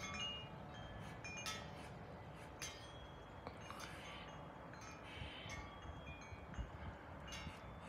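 Wind chimes ringing with irregular light strikes, each note hanging on at several pitches, over a faint low rumble.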